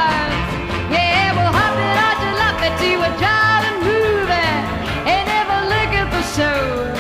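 Upbeat background song with a sung melody over a steady beat.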